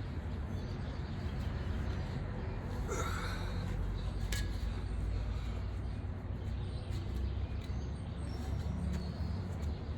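Steady low outdoor rumble, with one short breathy snort-like sound about three seconds in and a single sharp click about a second later.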